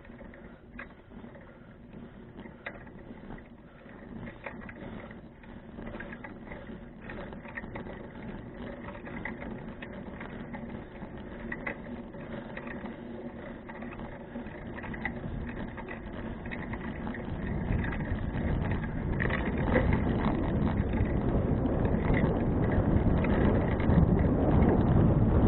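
Touring bicycle ridden along, with light clicks and rattles. Wind noise on the microphone builds steadily and grows loud over the second half.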